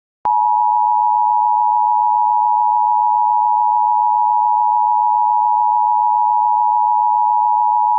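Emergency Alert System attention signal: the steady two-tone alarm of 853 and 960 Hz, starting with a click and held unchanged for about eight seconds.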